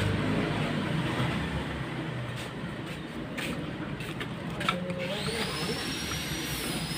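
Screwdriver turning a screw into the trigger block of a homemade slingshot fish gun, with a few small clicks. Under it is a steady rumbling background noise, and about five seconds in a thin high whine rises and then holds.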